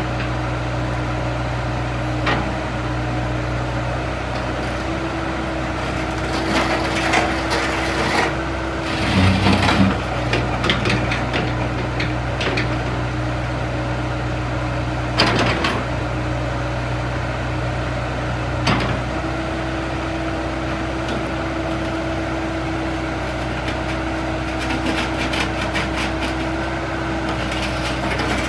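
Komatsu PC60-8 mini excavator's 3.2 L four-cylinder diesel running steadily while the boom, stick and bucket are worked hydraulically, with a steady higher whine over the engine and a few sharp knocks.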